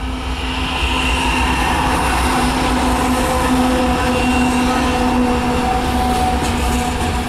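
Kansas City Southern diesel freight locomotive passing close by: a deep engine rumble under a steady hum.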